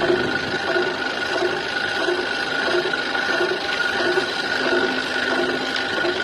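Metal lathe turning and cutting a workpiece: a steady high gear whine with a low rhythmic pulse about one and a half times a second as the work rotates.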